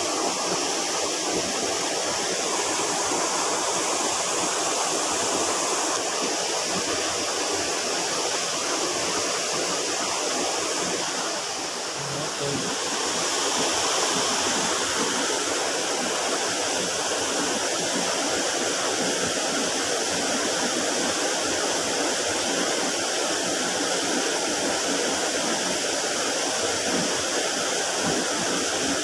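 Small river rushing steadily over stones: a continuous wash of flowing water.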